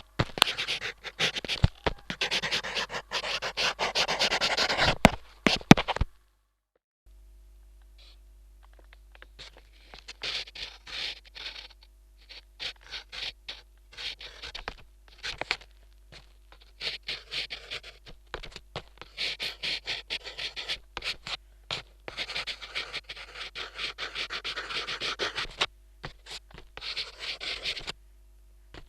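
Drawing strokes picked up through a DIY piezo contact microphone: dense, continuous scratching for about six seconds, a brief break, then bursts of short scratchy strokes. A steady low electrical hum comes in under the strokes after the break.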